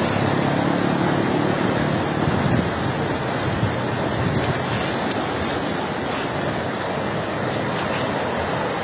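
Floodwater rushing along a street in a steady torrent, with a low hum under it for the first two seconds or so.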